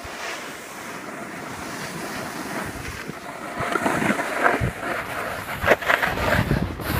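Snowboards sliding and carving on snow: a steady hiss of bases and edges with wind on the microphone, turning into rougher, louder, uneven scrapes from about halfway through as the boards cut through chopped-up snow.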